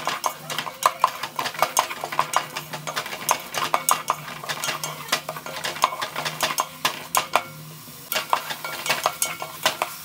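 A spatula scraping and clicking against a metal pot as crushed shallots with curry leaves and mustard seeds are stirred over a low flame, wilting. The strokes come in quick irregular succession and ease off near the end.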